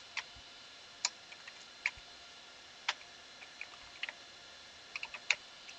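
Computer keyboard keys pressed one at a time, about a dozen separate sharp clicks at an uneven pace, over a faint steady hum.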